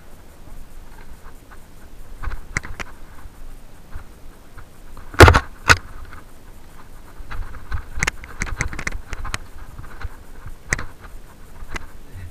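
Mountain bike rattling and clattering as it rolls down a rocky dirt trail, with sharp knocks over bumps and two loud bangs about five seconds in.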